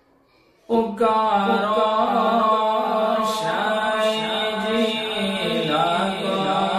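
Devotional chanting over a steady low drone. It starts suddenly about a second in, after near silence.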